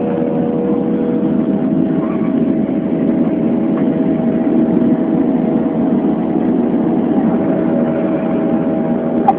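Steady jet engine noise inside an airliner's cabin during the climb after take-off, a constant roar with a few steady hum tones over it. A brief click near the end.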